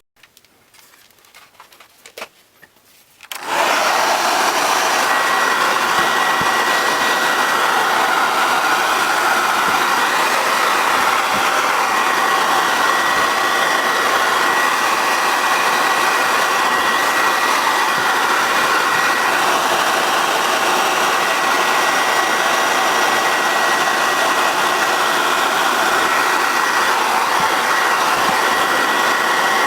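A few light clicks and taps, then a small electric blower motor is switched on about three seconds in. It runs at a steady level with a thin high whine over the rushing air.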